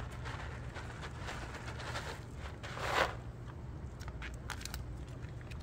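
Crunching and rustling from cat feeding, dry food and bowls handled at close range: a rustling swell about three seconds in, then a few short sharp clicks, over a steady low hum.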